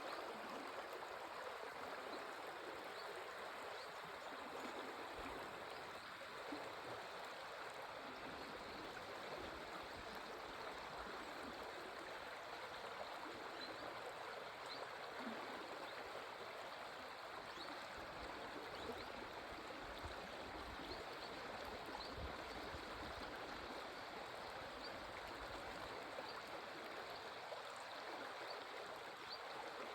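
A stream running steadily: a constant, even rush of flowing water.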